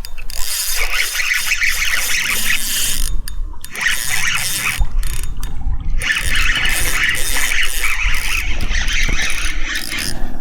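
Fishing reel being cranked to retrieve line, its gears giving a rapid mechanical clicking in two long runs with a short pause about three and a half seconds in.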